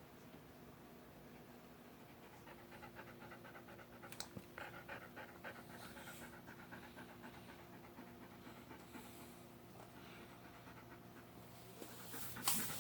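A dog panting fast and shallow in a steady quick rhythm, the stress panting of a dog frightened by thunder, over a low steady hum. A brief louder noise comes near the end.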